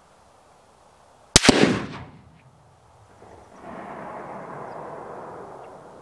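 A single rifle shot from a Savage Axis bolt-action in .270 Winchester about a second and a half in, with a short echo trailing off. A steady hiss follows for the last few seconds.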